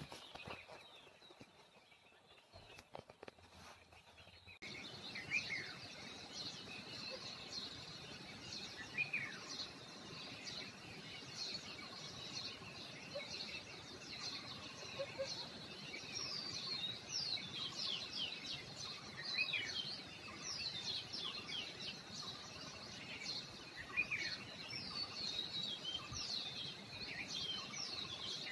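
Many short, high chirps, each falling in pitch, some overlapping, over a steady background hiss. They start about five seconds in, after a quieter stretch with a few soft clicks.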